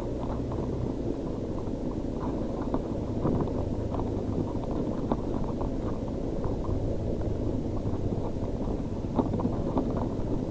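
Motorcycle engine running steadily at low speed on a sandy, stony off-road track, with scattered knocks and rattles from the bike over rough ground.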